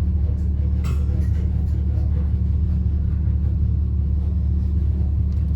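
Steady low hum, with a few faint clicks in the first two seconds.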